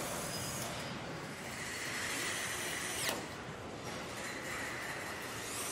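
Cordless electric torque gun driving a bolt: a high whine that cuts off sharply about three seconds in, then runs again near the end, over the steady noise of a factory hall.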